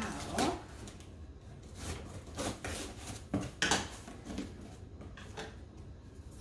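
Scissors slitting packing tape on a cardboard box, with hands scraping and handling the cardboard: several short scraping rasps.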